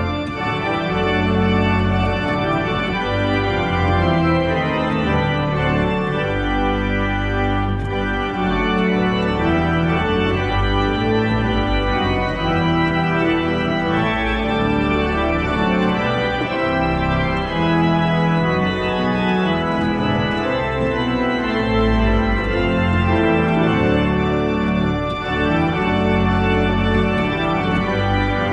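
Pipe organ playing a continuous piece, with changing sustained chords on the manuals over a deep pedal bass line.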